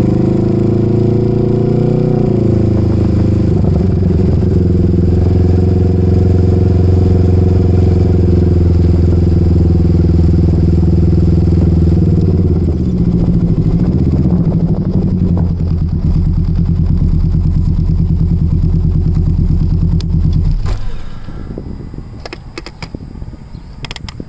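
Can-Am Ryker three-wheeler engine running steadily, its pitch rising briefly about two seconds in and wavering again about halfway through. The engine sound cuts off suddenly near the end, leaving a few clicks.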